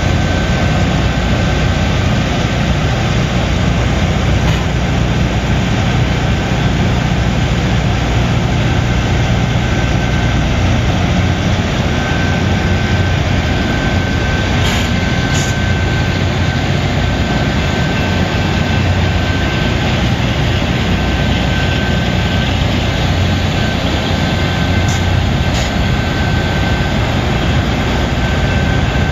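LORAM rail grinder train passing slowly, its heavy engines running with a loud, steady rumble and rolling noise, and a faint steady high tone that stands out more in the second half.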